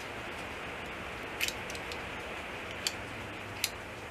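A few light, sharp clicks of small metal injection-pump parts being handled during reassembly, over a steady background hiss.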